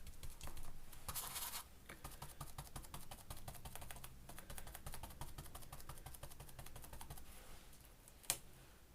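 Paint being dabbed rapidly through a stencil onto paper: a fast run of soft taps and scratches, with a brief hiss about a second in and a single sharp click near the end.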